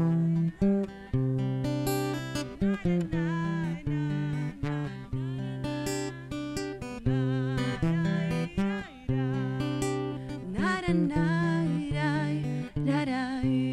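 Acoustic guitar playing the closing round of a song, with wordless singing along at times.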